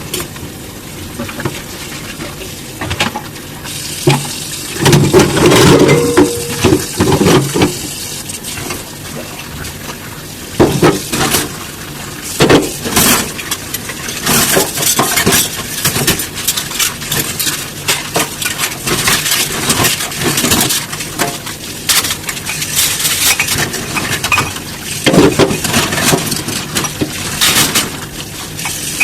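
Dishes being washed by hand: glass and ceramic dishware clinking and knocking against each other many times at irregular intervals, over a continuous hiss.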